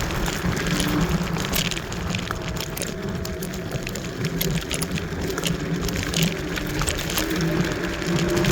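Kaabo Wolf Warrior electric scooter riding over rough trail: a steady motor hum that drops away in the middle and comes back louder near the end, with rattling and clicks from the tyres and frame on the uneven ground.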